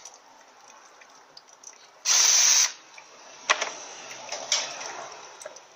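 A power tool runs in one short burst about two seconds in, backing out the last bolt holding the automatic transmission's valve body. Two sharp clicks follow with low clatter as the loosened valve body is handled.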